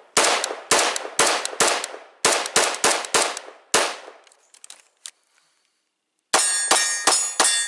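A bullpup rifle fired in a rapid string of about a dozen shots until it runs dry, then a pause of about two seconds with one faint click during the transition. About six seconds in, an HK USP .40 pistol opens up with a quick run of shots, each followed by a metallic clang and ringing.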